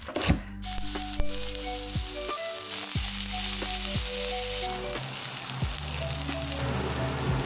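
Spinach sizzling and frying in a hot pan. The hiss starts about half a second in and is strongest midway, over background music.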